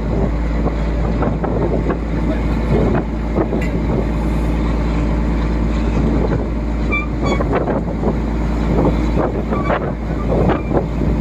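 Fishing boat's inboard diesel engine running steadily, with water churning in the propeller wash and wind buffeting the microphone.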